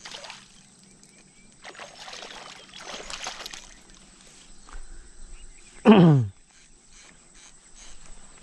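A hooked snakehead fish splashing at the lake surface, then rustling thrashes as it is dragged up onto the grass bank. About six seconds in comes the loudest sound: one short voice-like call that falls in pitch.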